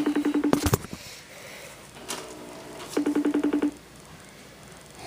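An electronic trilling tone, a single pitch pulsing very fast, sounds in bursts of under a second, twice about three seconds apart, like an electronic telephone ringer.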